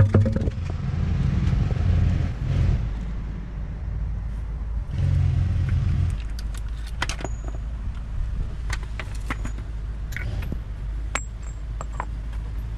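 Scattered light metallic clinks of a large impact socket being handled and set down on asphalt, over a steady low rumble.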